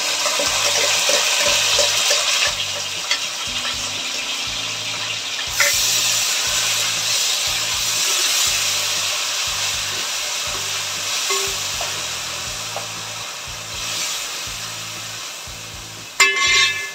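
Coarse green masala paste sizzling as it hits hot oil and fried onions in an aluminium pot, stirred with a metal spoon. The sizzle is loudest at first and slowly dies down. Near the end there is a short metallic clatter of the spoon against the pot.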